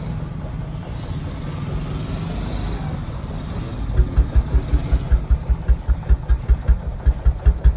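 Honda 125 motorcycle's single-cylinder engine running at idle, a steady low hum at first. About four seconds in it turns into a deep, even thumping at about five or six beats a second.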